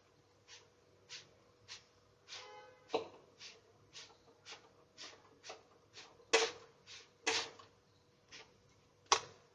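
A folded cloth pressing and rubbing a paratha against a hot griddle (tawa): a series of short scuffing strokes, about two a second, a few of them louder in the second half.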